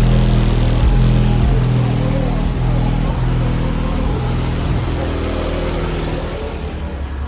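Loud bass-heavy music playing through a car audio system's subwoofers, deep bass notes changing every half second or so and gradually getting quieter.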